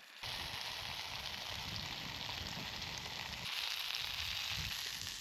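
Plant-based sausages sizzling in the frying bowl of a Trangia camping cook set over a stove. The steady sizzle starts suddenly and grows louder about three and a half seconds in, over a low fluttering rumble.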